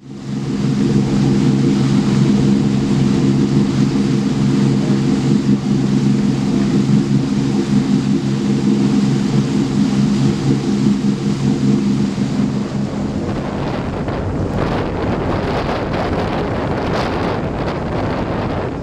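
Fishing party boat's engine droning steadily under way, with wind on the microphone. About thirteen seconds in the engine drone drops away and gusty wind buffeting and water noise are left.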